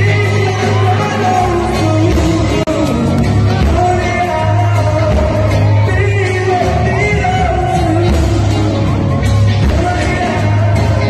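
Live pop-rock band music with a male lead vocalist singing a melody over a steady bass line.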